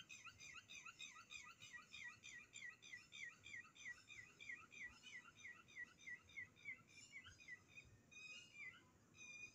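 Faint chirping animal call: a short falling note repeated about four times a second, steady until about seven seconds in, then breaking into a few scattered notes.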